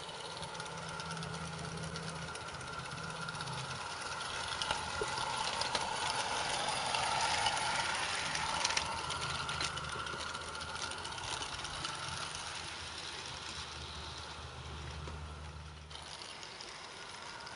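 A 16mm-scale live-steam garden railway locomotive hauling small wagons past, hissing steam that grows louder to a peak about halfway through and then fades as it moves away, with a few sharp clicks from the wheels on the track. A low steady drone runs underneath.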